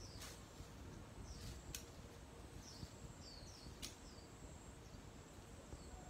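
Faint outdoor quiet with a few short, falling bird chirps, and three sharp clicks about two seconds apart as leafy stems are cut with a small blade.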